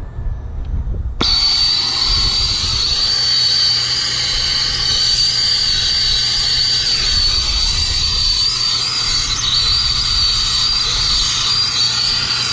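Brazing torch flame hissing, cutting in suddenly about a second in and then running steadily with a thin high whistle in it. The torch is giving a brazed joint on a refrigerant line extra heat so the solder seals all the way around.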